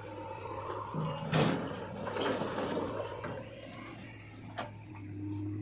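A backhoe loader dumps a bucket of earth into a steel tractor trolley. A heavy thud comes as the load lands, about a second and a half in, then loose soil clatters for a second or so. A sharp knock follows near the end, all over the steady hum of a diesel engine.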